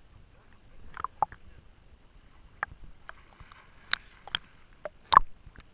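Lake water lapping and splashing against a waterproof action camera's housing at the surface, in scattered short sharp splashes, the loudest about five seconds in.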